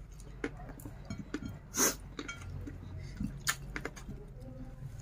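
Eating by hand from a ceramic plate: fingers mixing rice and pecel, with a few sharp clicks and clinks, the sharpest about two seconds in and another about three and a half seconds in, over a steady low hum.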